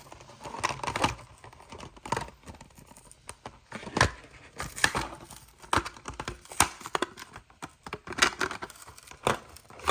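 A Hot Wheels blister pack being torn open by hand: irregular tearing and crinkling of the cardboard card and plastic blister, with sharp cracks and clicks.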